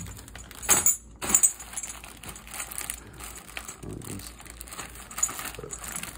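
Cardboard and a plastic parts bag rustling and crinkling as they are handled inside a lawn mower's shipping box, with small metal parts clinking in the bag. Two sharper clatters in the first second and a half, then softer rustling.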